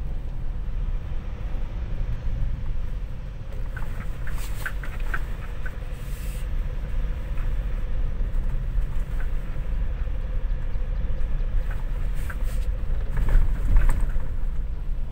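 Ford Ranger FX4 Max pickup driving on a rough gravel and dirt track: a steady low rumble of engine and tyres, with clusters of knocks and rattles from stones and bumps about four seconds in and again near the end.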